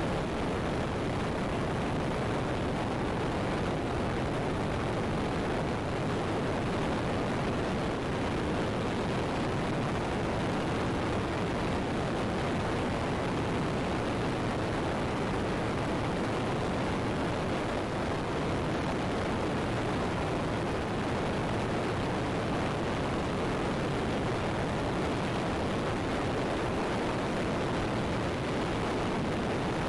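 Steady rush of slipstream wind on the camera's microphone through the open window of a small high-wing plane in flight at about 110 mph, with the aircraft's engine blended into it.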